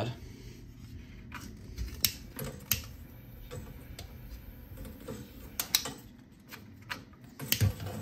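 A handful of sharp, irregular clicks and taps as someone tries to relight a gas boiler's pilot with a hand-held lighter. The pilot does not stay lit because the gas supply to the boiler has been shut off.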